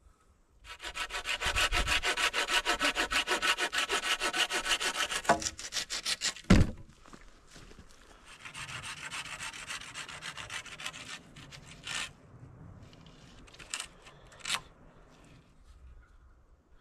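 Hand saw cutting through a wooden pole with fast, even strokes, then a sharp knock about six and a half seconds in. A second, quieter spell of sawing follows, then a few scattered knocks.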